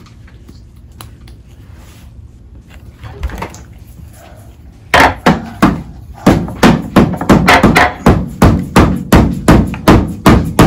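Hammer blows on wood: a steady run of sharp strikes at about three a second, starting about halfway through after a few seconds of faint room sound.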